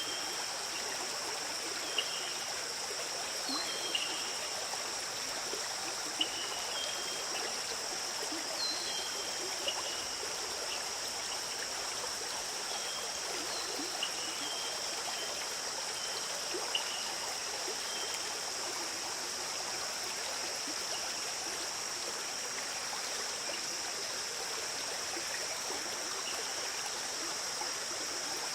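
Forest stream flowing steadily, with short high chirps scattered through the first two-thirds and a steady high-pitched hiss above the water.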